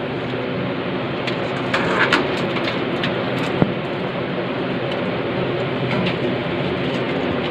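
Steady rushing noise with a low hum underneath, broken by scattered sharp clicks and knocks from old control cables being stripped out of a SCADA panel.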